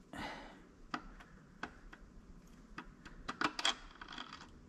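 Scattered light metallic clicks and taps from parts being handled and worked loose by hand inside a stripped Renault J7R engine block, with a quick run of clicks about three and a half seconds in as the parts come free.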